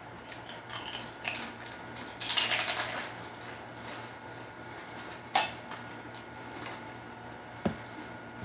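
Hand-eating from an aluminium-foil food tray: scattered small clicks and mouth sounds, a rustle lasting about a second a couple of seconds in, and two sharp knocks, one near the middle and one near the end, over a faint steady hum.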